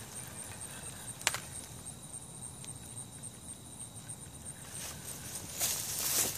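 Insects trilling steadily in a grassy field, with one sharp click about a second in and a burst of rustling near the end.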